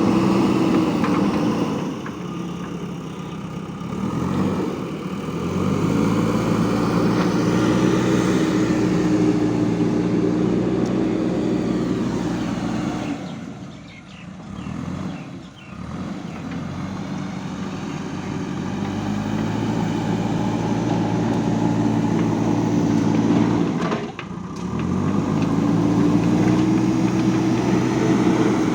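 JCB 3DX backhoe loader's diesel engine running, revving up and dropping back several times as the machine works.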